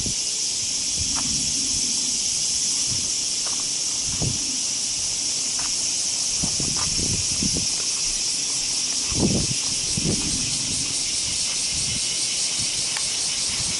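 A dense summer chorus of cicadas, a steady high buzzing hiss. A few soft thuds and rustles close to the microphone come and go, the loudest a little past the middle.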